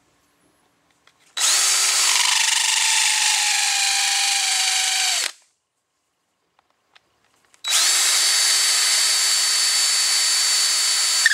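Hand drill spinning a pen mill that squares the ends of a whiskey-barrel-stave pen blank flush with its brass tube, in two runs of about four seconds each with a steady whine. A lower pitch sags slightly during the first run as the cutter bites.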